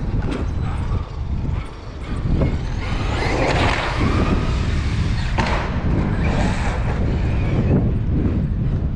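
Traxxas X-Maxx electric RC monster truck running, its brushless motor whine rising and falling in pitch over a steady low rumble, louder from about two and a half seconds in.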